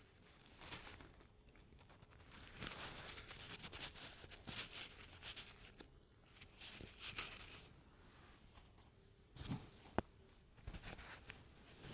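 Faint sniffing and breathing from a woman holding back a sneeze, in short noisy breaths, then a low thump and a single sharp click about ten seconds in.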